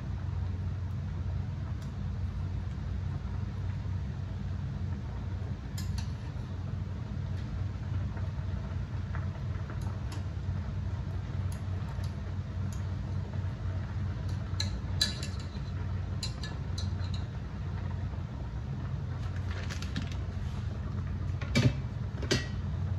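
Stainless steel pot of water at a rolling boil, a steady low rumble, with chopsticks clicking and clinking against the pot now and then. Two louder knocks come near the end.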